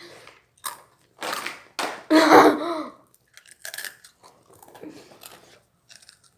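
Potato chips being bitten and crunched in a series of short crunches, fainter after about four seconds, with a brief hum of a voice about two seconds in.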